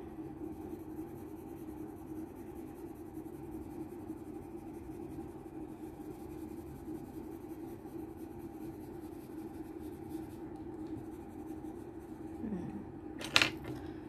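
Coloured pencil shading on paper, a soft continuous scratching over a steady low hum. Near the end, one sharp click.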